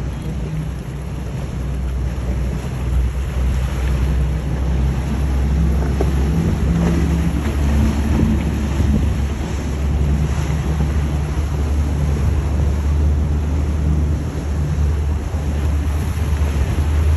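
Motorboat engines running with a steady low rumble, mixed with water rushing and splashing off the hulls and wind buffeting the microphone.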